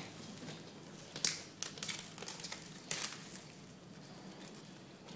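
Clear plastic protective film being peeled and handled on a hard-shell suitcase, crinkling and crackling in irregular spurts. The crackles are loudest in the first three seconds and fainter toward the end.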